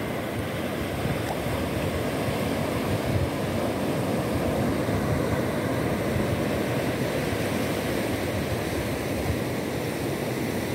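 Sea surf breaking and washing up a sandy beach: a steady, even rush of water.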